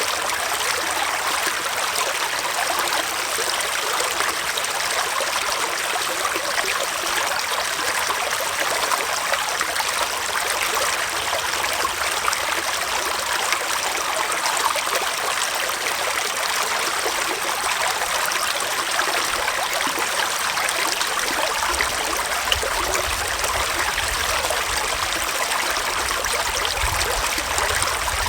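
Small forest stream flowing, a steady rush and trickle of running water. About three-quarters of the way through, a faint low rumble joins underneath.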